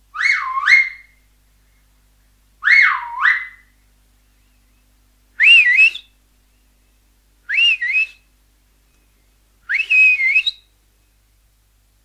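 Five finger whistles, each about a second long and about two and a half seconds apart. The first two swoop down in pitch and back up; the last three hold a higher pitch with a quick wavering.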